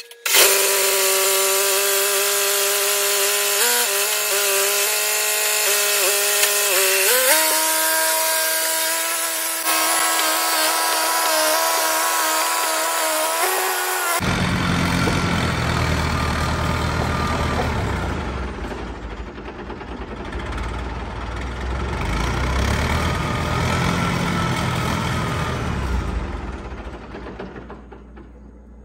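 John Deere 450 crawler dozer's engine running, its pitch stepping up twice as it is revved, then a rougher engine-and-track sound as the dozer moves out. It dies away near the end: the fuel had been left turned off.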